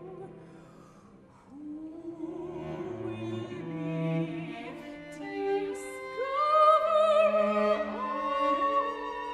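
Soprano voice and two cellos performing a slow art song: sustained, bowed cello notes under a held, wavering soprano line. The music thins out about a second in, then swells to its loudest on high held notes about two-thirds of the way through.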